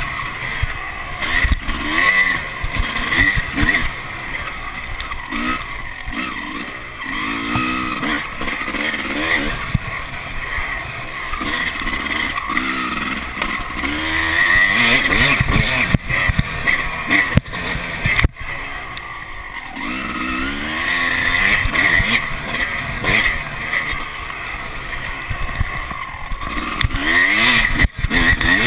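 Dirt bike engine revving up and down repeatedly as it is ridden off-road, with wind noise on the microphone and a couple of sharp knocks from bumps.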